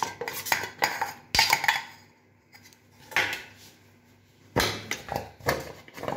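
A metal spoon scrapes and clinks against a steel plate as frozen banana slices are pushed off into a jar. There are quick clinks for the first two seconds, a lull with a single clink, then a run of louder knocks near the end.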